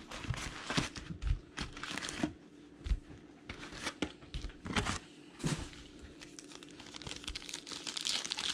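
Foil-wrapped trading card packs rustling and crinkling as they are handled and pulled from a cardboard hobby box, with a few light knocks. Near the end a pack wrapper crinkles as it is torn open.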